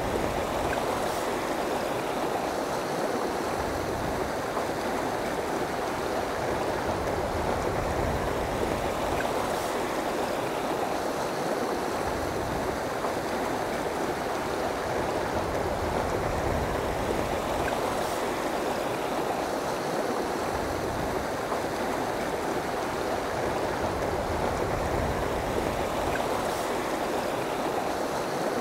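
Steady rush of river water flowing over rocks, an even, unbroken sound.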